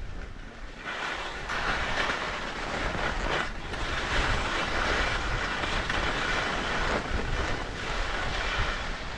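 Skis sliding and scraping over snow in a steady hiss as a skier descends, starting about a second in, with wind rumbling on the microphone.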